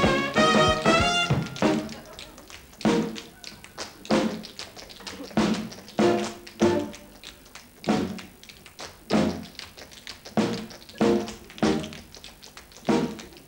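Tap shoes clattering on a stage floor in a tap routine. A swing band plays a full phrase that breaks off about two seconds in, then gives only short sharp chords about once a second while the taps carry on between them.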